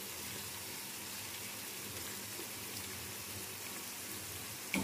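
Sliced onions sizzling in hot cooking oil in a kadhai: a steady, even hiss. A brief knock of the spatula against the pan comes near the end.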